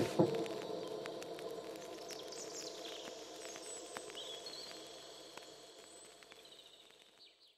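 Soft background music dying away: held notes fade out while faint high chirp-like glides sound over them, falling to silence at the very end.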